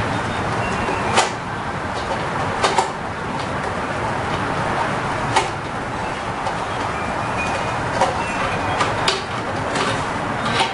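Hand screwdriver backing wood screws out of a wooden stand: a few sharp clicks and ticks of the tool and hardware, spaced a second or more apart, over a steady background hiss.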